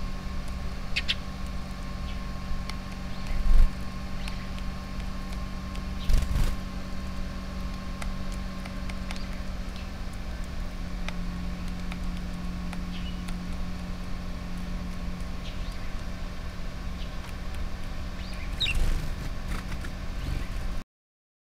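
Eurasian tree sparrows giving a few short chirps, once about a second in and again near the end, over a steady low hum and rumble. Two dull thumps come a few seconds in, and the sound cuts out briefly near the end.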